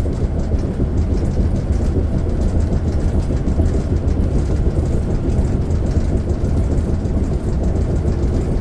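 Steady low road rumble inside the cab of a Class A motorhome on a Ford F53 chassis cruising down the road: engine, drivetrain and tyre drone.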